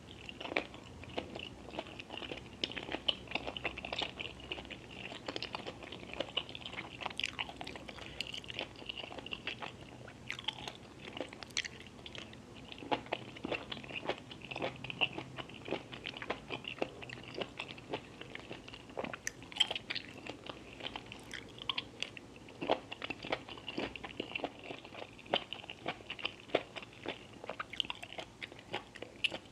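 Close-miked ASMR eating: chewing and biting, with many short sharp crunches throughout, from spicy-sauced squid, shrimp, mushroom and chicken feet.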